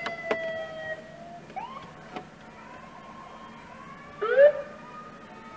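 Police car sirens blipped in short rising whoops, one about a second and a half in and a louder one about four seconds in. The tail of a held siren tone fades out in the first second.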